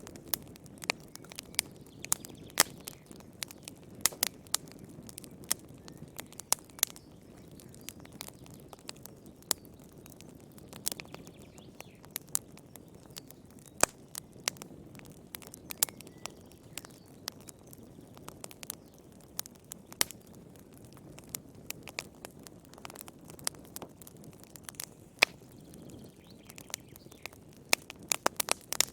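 Wood fire burning in a fireplace: a low, soft rush of flame with frequent irregular sharp crackles and pops.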